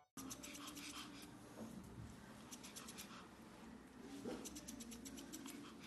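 Grooming scissors snipping a Pomeranian's fur, quiet runs of quick metallic snips coming in several short bursts.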